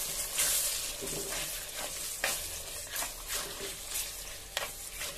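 A spatula stirring mutton lining-fat gravy with freshly added ground coconut in a pan, over a steady sizzle, with repeated scrapes of the spatula against the pan.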